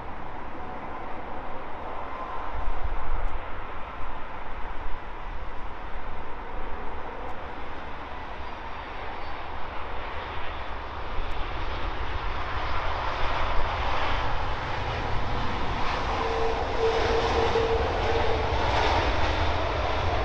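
Air Canada Airbus A330's jet engines as it lands, touching down about halfway through. The noise grows louder and brighter after touchdown as the airliner rolls out along the runway.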